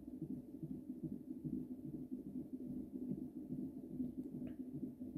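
Fetal heartbeat from a cardiotocograph's Doppler ultrasound transducer, played through the monitor's speaker: a fast, even pulse, a little over two beats a second.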